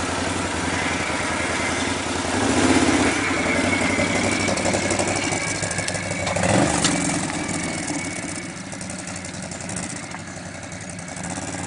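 ATV engine running at idle and revving up twice as the quad pulls away down a rough dirt slope, then growing fainter as it moves off.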